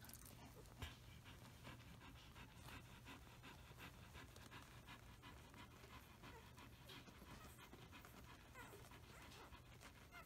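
Faint, quick panting of an adult Samoyed dog over a low steady hum.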